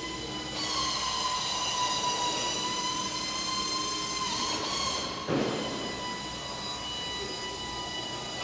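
A steady, high-pitched mechanical whine that sags slightly in pitch at first and then holds, with a short noisy burst about five seconds in.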